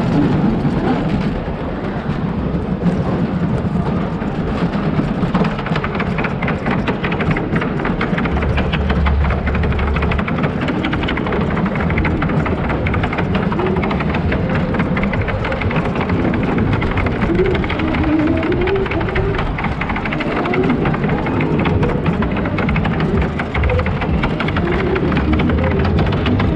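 Wooden roller coaster train rolling along its wooden track, with a steady low rumble and continuous clatter from the wheels on the rails.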